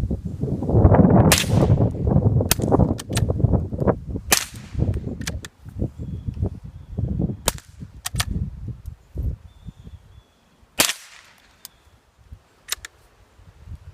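.22 rifle shots: an unsuppressed Ruger 10/22 and a suppressed Ruger American bolt-action fired in turn, about half a dozen sharp cracks a second or more apart. A low rumble runs under the first few shots.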